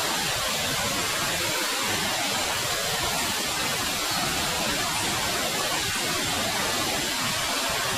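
Steady rushing of flowing water, an even hiss with no break or change.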